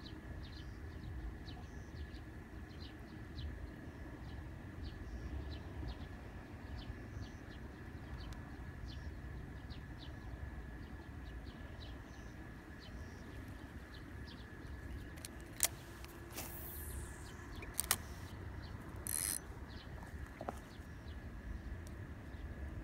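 Outdoor waterside ambience: a steady low rumble with small bird chirps scattered throughout. Near the end come a few sharp clicks, a brief falling swish and a short rustling burst.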